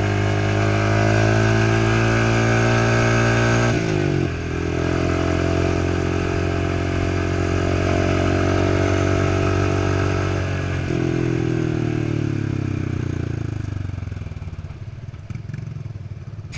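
Trail motorcycle engine running at steady revs. The pitch drops suddenly about four seconds in and again about eleven seconds in, then slowly falls away near the end.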